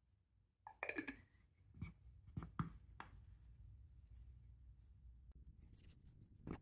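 Faint handling of the finished walnut box pieces: a few light wooden knocks and rubs, a short cluster about a second in, then single taps and one more near the end.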